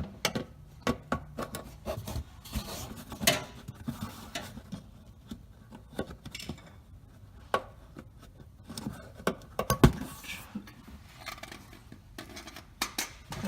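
Flathead screwdriver scraping and clicking against plastic push-in bumper clips as they are pried out. Irregular scrapes and small clicks, with the sharpest click about ten seconds in.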